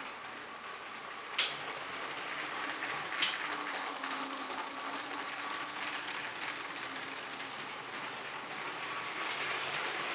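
Motorized Lego train running on plastic Lego track: a steady mechanical whirr and rattle of motor and wheels that grows louder as it approaches, with two sharp clicks about a second and a half and three seconds in.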